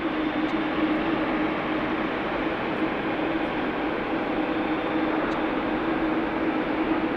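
A Boeing 787 Dreamliner's jet engines at taxi power as the airliner rolls along the taxiway. It makes a steady rushing hum with a constant low drone running through it.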